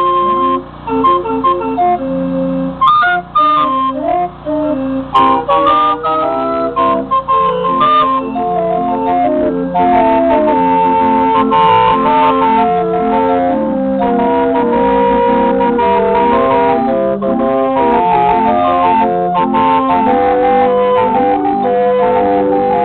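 A small pipe organ built into the back of a vintage truck plays a tune: a melody of held, steady organ notes over a repeating bass-and-chord accompaniment. It plays in short phrases with brief breaks during the first several seconds, then runs on continuously.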